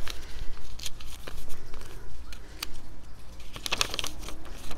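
Paper rustling and small handling clicks as a sheet of paper is handled, with a denser burst of rustling near the end.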